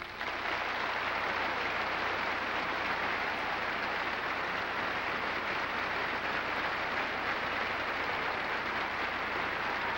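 A large audience applauding steadily, many hands clapping at once and blending into an even wash of sound.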